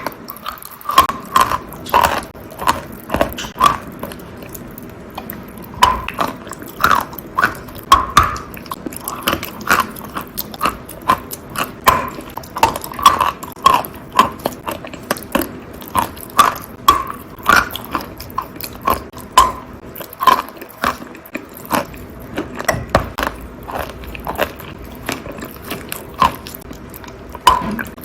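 Close-up wet crunching as natural chalk tiles coated in pink clay paste are bitten and chewed: sharp, irregular crunches, about one or two a second.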